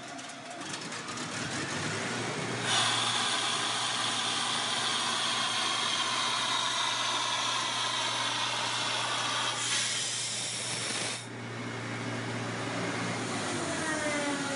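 1975 Sullair portable air compressor running, with a loud rush of compressed air hissing out of its opened valve from about three seconds in until about eleven seconds in. Near the end a whine drops in pitch.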